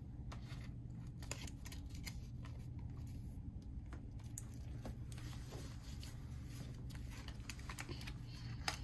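Scattered light clicks and rustles of trading cards and their plastic wrapping being handled on a table, with a pair of scissors picked up and set down. A faint steady hum lies underneath.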